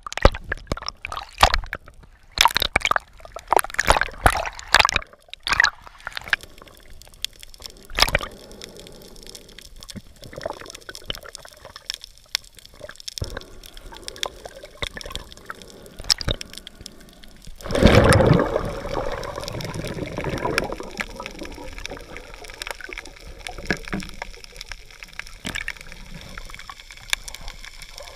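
Water sloshing and gurgling around a camera held underwater, with dense crackles and clicks in the first few seconds. About 18 seconds in, a louder rush of water noise lasts about two seconds.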